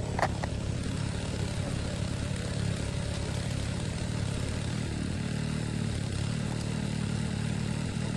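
Small engine-driven water pump running steadily, draining the stream.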